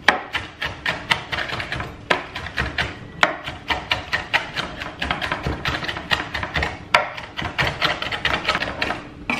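Kitchen knife chopping crispy fried bacon on a wooden chopping board: quick knocks of the blade on the wood, several a second, easing off briefly near the end.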